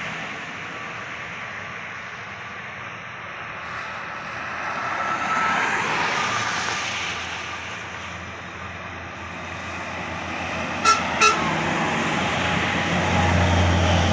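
Toll-road traffic passing, with one vehicle swelling past about halfway through. Two short horn toots come a little before the end, then a heavy vehicle's low engine drone grows louder as it approaches.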